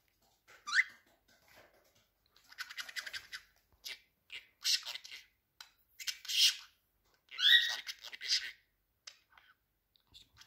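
Budgerigar chattering close to the microphone: a few sharp rising chirps mixed with scratchy, raspy warbling that comes in short bursts about a second apart.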